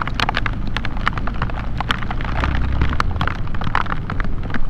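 Heavy rain, the drops hitting the waterproofed camera in dense, irregular ticks, over the low steady rumble of a motorcycle riding through it.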